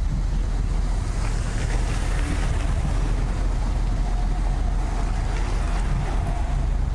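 A car driving at speed: a steady low rumble of road and wind noise.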